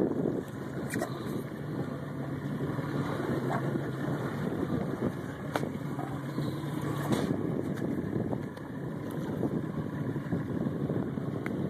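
Boat engine idling with a steady low hum under a rough wash of noise, broken by a few short sharp clicks.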